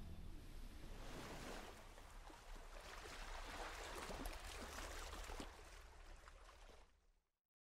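Faint rushing, fizzing and splashing water from a motor yacht's churned white wake. It cuts off abruptly about seven seconds in.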